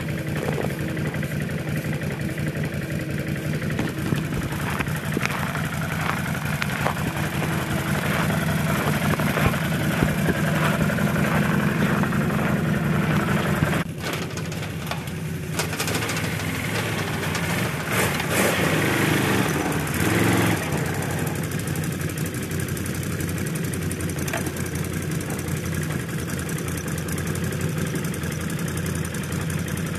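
Small ATV engine running steadily, growing louder for a few seconds before an abrupt drop about halfway through, then revving up and back down briefly.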